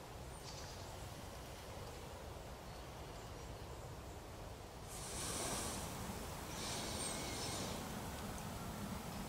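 Quiet woodland ambience with a steady low rumble, and two short hissing rustles about five and seven seconds in.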